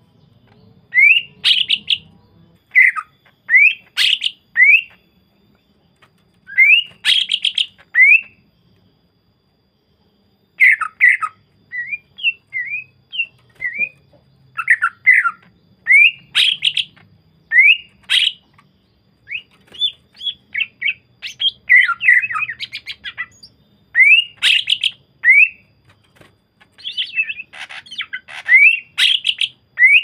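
Male greater green leafbird (cucak ijo) singing: loud phrases of quick, rising and falling whistled notes broken by short pauses. This is a pancingan song, the kind used to set other cucak ijo singing.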